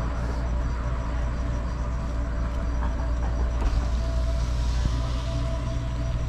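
Car engine running with a steady low drone as the car idles and then rolls slowly forward.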